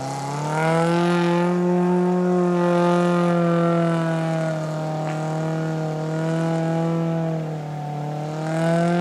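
Suzuki Vitara 4x4's engine pulling hard through deep mud ruts: the revs climb in the first second and are held steady, sag briefly near the end, then climb again.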